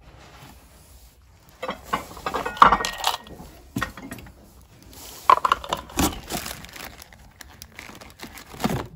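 Small objects being handled and rummaged in cardboard boxes: irregular clinks, knocks and rattles with rustling of paper, loudest about a third of the way in and again past the middle.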